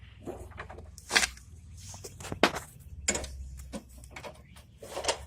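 A handful of sharp metal clanks and knocks, about five spread over the few seconds, from parts and tools being handled while reassembling a lawn mower's deck and belt drive, over a low steady hum.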